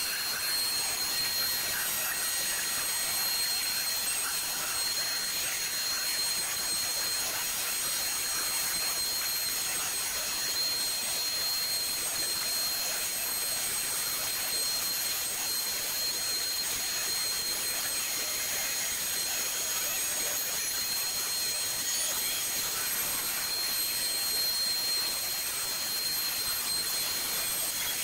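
CNC router's spindle, a handheld wood router, running at full speed and cutting through 3/4-inch plywood. It gives a steady high-pitched whine over a hiss.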